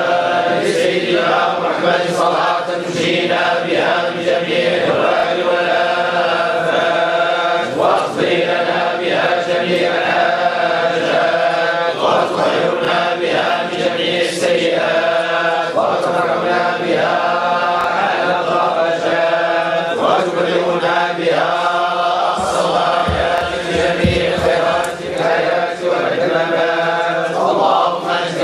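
A group of men's voices chanting together in unison, a Sufi devotional chant in long melodic phrases.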